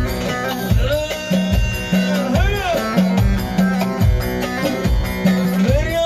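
Live Turkish folk dance music through a PA: amplified bağlama picking with darbuka and keyboard over a steady beat, with a few gliding, bending notes.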